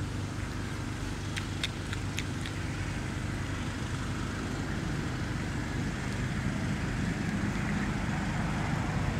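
Steady low engine rumble, slowly growing louder toward the end. A few faint clicks come about one and a half to two and a half seconds in.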